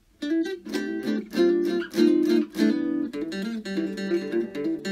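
Background music: strummed guitar chords in a steady rhythm, starting a moment in.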